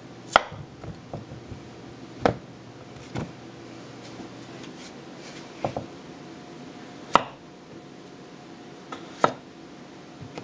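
Teruyasu Fujiwara kitchen knife slicing through a raw potato, each cut ending in a sharp knock of the blade on a wooden cutting board. There are about six knocks, unevenly spaced a second or two apart.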